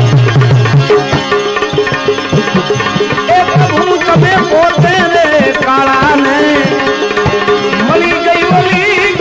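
Instrumental passage of a Gujarati devotional bhajan: tabla strokes under a melody line that bends and slides in pitch.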